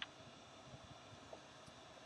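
Near silence: room hiss, with one short click at the very start and a fainter tick a little past halfway.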